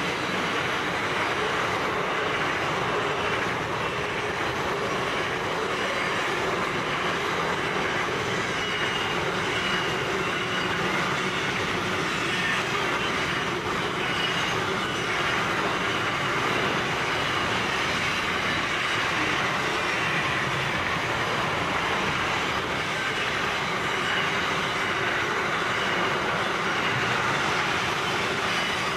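Container and trailer flat wagons of a long freight train rolling steadily past at speed: a continuous rumble and rattle of wheels on rail, with a faint high wheel squeal now and then.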